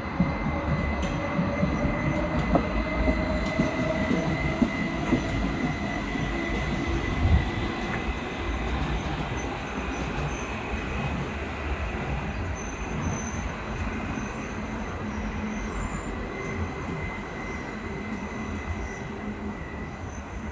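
DB class 423 S-Bahn electric multiple unit running, with a steady high squeal throughout. A lower tone glides upward over the first few seconds, and the whole sound slowly gets quieter.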